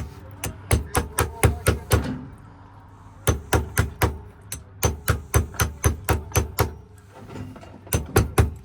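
Rapid runs of sharp knocks, about four a second, in four bursts of four to seven strikes with short pauses between.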